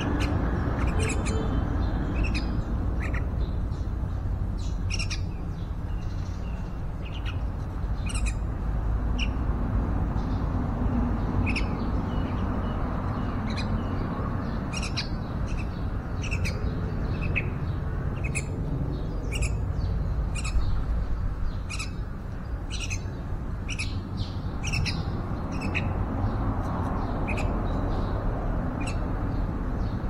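Yellow-vented bulbuls giving short, sharp high chirps, singly or in quick pairs at irregular intervals of about a second, over a steady low background rumble.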